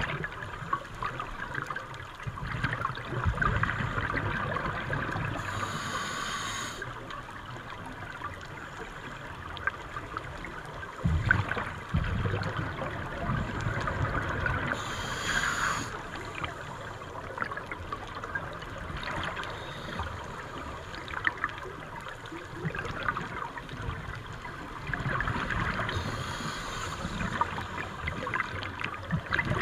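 Scuba breathing heard underwater through the camera housing: gurgling bubble exhalations from a regulator over a steady wash of water noise, with three short hissing breaths spaced about ten seconds apart.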